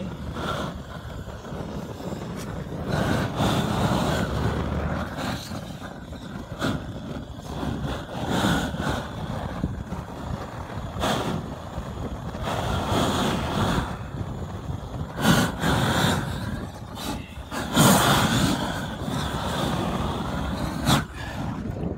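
Hose-fed roofing torch burning with a steady rushing flame, swelling and easing in surges as it heats a membrane patch to bond it over a roof drain. Now and then a sharp knock or scrape.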